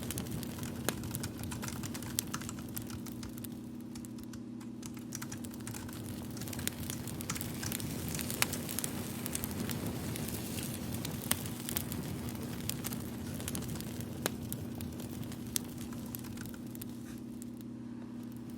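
Fire crackling, with scattered sharp pops and snaps over a steady low hum.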